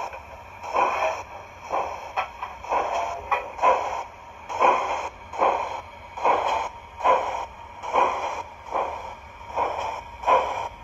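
Digital steam sound from a Zimo MX644C sound decoder with a Prairie sound file, playing through the factory-fitted speaker of an O gauge 45XX Prairie tank engine model: slow, even exhaust chuffs, a little more than one a second, as the model runs slowly.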